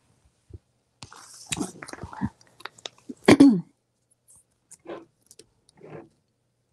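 Crinkling and rustling of poly burlap deco mesh and a plastic bag of zip ties being handled in short, irregular bursts, with one short vocal sound a little over three seconds in.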